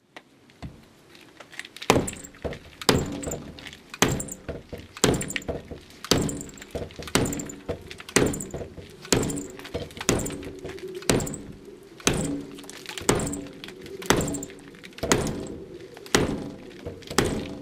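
Boker Vox T-Hawk tomahawk chopping into a door with overhead blows. After a quiet first couple of seconds, the strikes come about once a second, each a sharp thunk that rings briefly.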